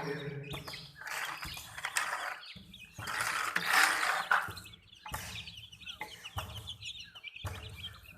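Baby chicks peeping over the mechanical noise of a toy JCB crane, in several short segments that start and stop abruptly.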